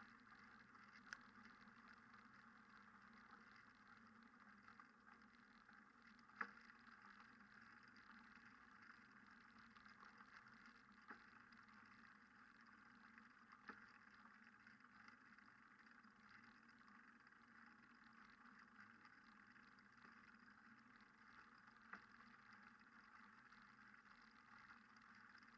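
Near silence: a faint steady hiss, broken by a handful of isolated faint clicks.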